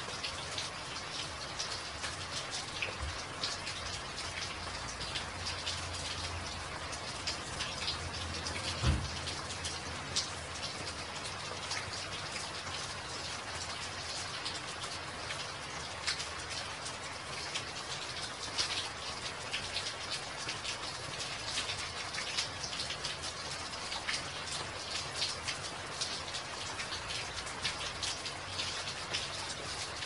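Steady rain falling on a wet walkway, many small drops splashing into shallow puddles. A single dull low thump about nine seconds in.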